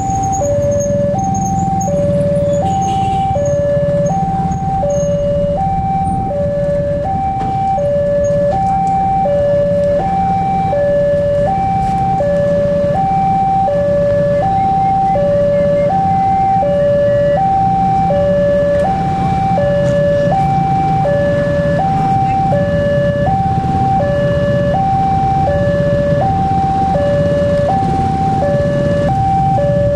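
Electronic level-crossing warning alarm on an Indonesian railway crossing sounding continuously: two tones alternating high and low, each held for about three-quarters of a second, with a steady low rumble underneath. It signals that the barriers are down for an approaching train.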